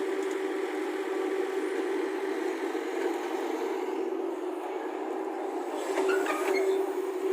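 Excavator diesel engine running steadily, with a brief higher-pitched sound near the end.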